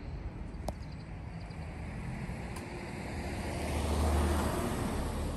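A car passing by: tyre and engine noise rises to a peak about four seconds in, then fades.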